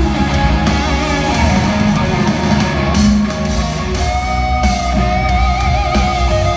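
Hard rock band playing live in an arena, with electric guitar, drums and bass. From about four seconds in a long held lead note with wide vibrato rings out over the band.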